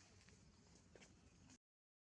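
Near silence: faint background hiss with a few soft ticks, dropping to complete silence near the end.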